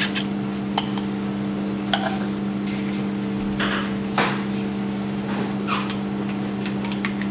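Scattered metal clicks and clanks as a compression tester's hose and threaded adapter are handled and fitted into a spark plug well of an engine's cylinder head, over a steady hum.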